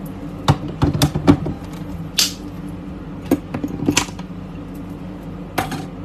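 Clacks and knocks of a metal espresso portafilter being handled and locked into an espresso machine's group head: a quick cluster about a second in, then single sharp clicks every second or so, over a steady low hum.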